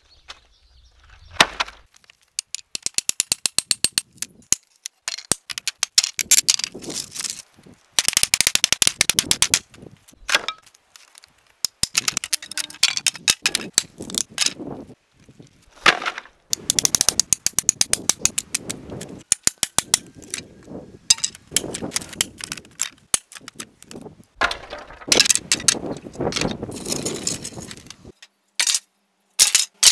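Rapid runs of sharp blows on wooden pallet boards as a pallet is knocked apart, broken by short pauses.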